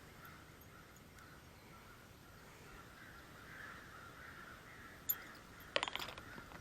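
Crows cawing faintly and without let-up, a flock worked up over something. About five seconds in, a quick cluster of sharp knocks sounds close by and louder than the crows.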